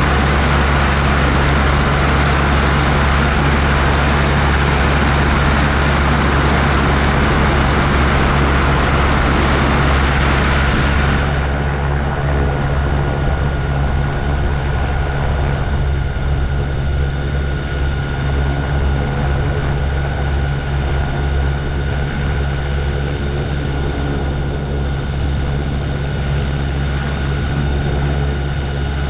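Gyroplane in flight: the steady drone of its engine and pusher propeller, with a loud rushing noise over it that drops away suddenly about eleven seconds in.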